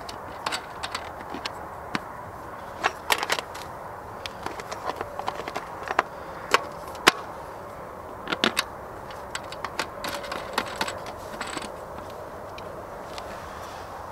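Irregular plastic clicks and knocks from handling the WEN generator's air filter cover and its clips, with several louder snaps about a third and halfway in.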